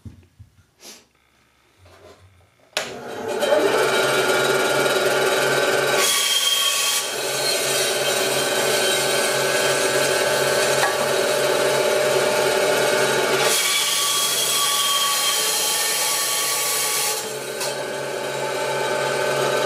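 Delta 9-inch benchtop bandsaw switched on about three seconds in and running with a steady motor hum. Its blade cuts walnut twice: a short cut around six seconds in and a longer one from about thirteen to seventeen seconds, each a loud hiss over the hum.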